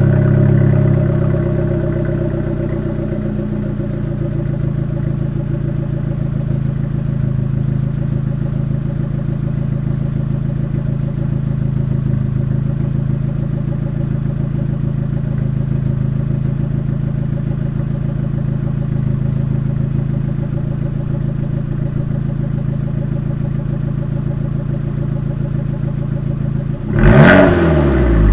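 2012 Abarth 500C's 1.4-litre turbocharged four-cylinder idling through an Akrapovic exhaust after a cold start: the fast cold idle eases down in the first couple of seconds, then runs steadily. Near the end a quick throttle blip rises and falls, the loudest moment.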